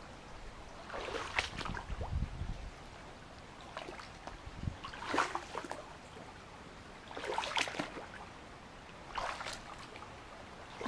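Feet wading through a shallow mountain stream: several sloshing, splashing steps a couple of seconds apart over the steady rush of the stream's water.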